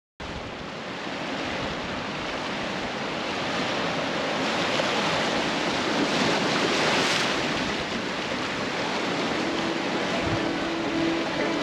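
Sea surf breaking and washing over rocks, a steady rush that swells to its loudest about halfway through. Near the end, faint plucked notes of music begin.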